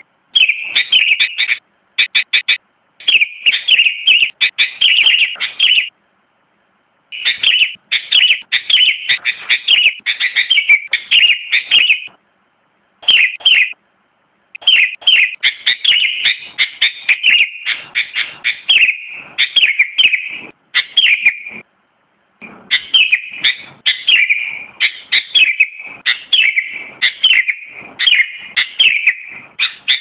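Sooty-headed bulbul singing: fast runs of short, bright chirping phrases repeated in bouts, broken by a few brief pauses.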